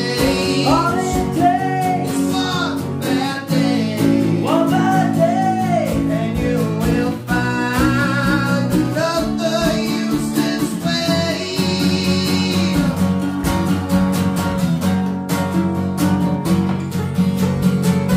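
Two acoustic guitars, a sunburst full-size acoustic and a small parlour guitar, strummed together with a man singing over them. The voice drops out about thirteen seconds in, leaving the guitars strumming on.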